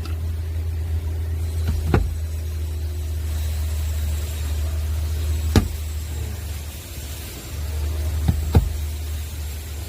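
Steady low hum of a running engine or motor, with a few sharp clicks: one about two seconds in, one in the middle and a close pair near the end.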